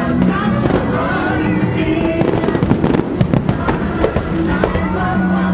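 Fireworks going off in quick succession, a dense run of bangs and crackles, over loud show music with sustained notes.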